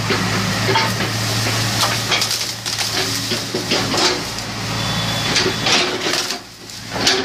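Excavator engine running with a steady low hum, over irregular clanks and rattles; the hum drops away briefly near the end.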